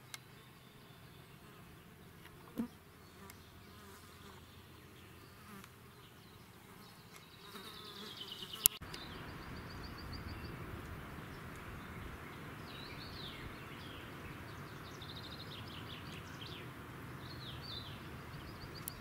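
Insects buzzing steadily, louder from about nine seconds in, with small birds chirping high at times. A single sharp click sounds just before the buzzing grows louder.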